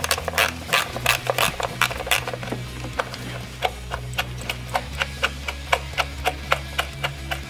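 Ratchet wrench clicking in quick, even strokes as it backs out the ignition coil hold-down bolts. Background music plays underneath.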